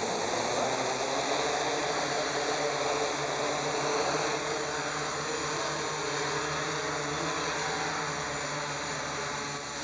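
Electric motors and propellers of a small quadcopter whirring steadily as it lifts off and hovers low.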